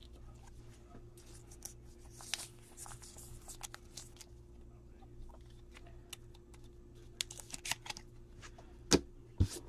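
Faint rustling and light clicking of a trading card being handled and slid into a clear plastic card sleeve, with two sharper knocks near the end, over a steady low hum.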